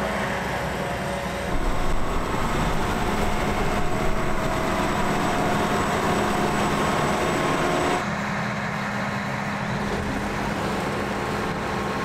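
Large diesel farm machinery engine running steadily, a constant hum with a thin steady whine above it; about eight seconds in, the higher whine drops out and the lower hum carries on.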